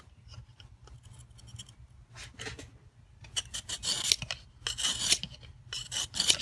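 A small oiled medium Arkansas sharpening stone on a guide rod being stroked along a pocket knife's edge, rasping on the steel. A few faint clicks at first, then about three long strokes in the second half.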